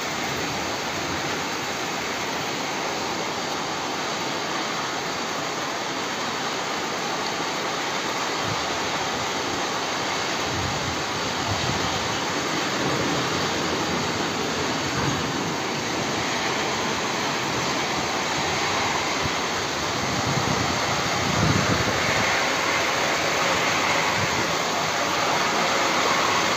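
Heavy rain pouring down, a steady hiss that slowly grows louder. Gusts of wind buffet the microphone now and then, strongest a little past two thirds of the way in.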